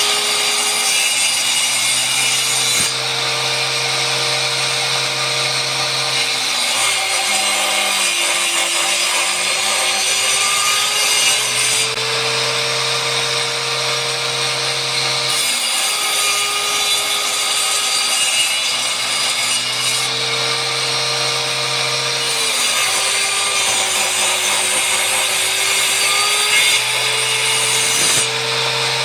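Powered wood-cutting saw running steadily and cutting timber. Its motor tone drops in pitch several times and comes back up, as the saw slows under the load of each cut and recovers.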